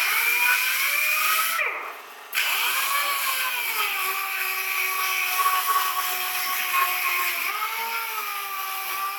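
A hand-held electric power tool running with a steady whine whose pitch wavers slowly as the load changes. About two seconds in it winds down and stops, then starts up again and runs on.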